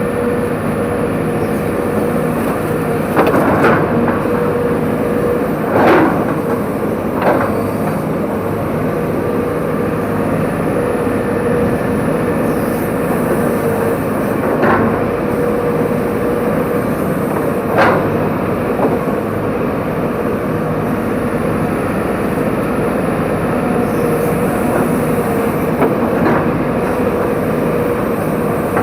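Excavator's diesel engine running steadily under load with a constant hydraulic whine, broken by about half a dozen sharp knocks and cracks.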